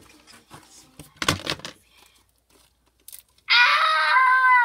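Soft squishing and crinkling as slime is worked in the hands and in its clear plastic bag. About three and a half seconds in, it breaks into a child's loud, high-pitched sustained squeal.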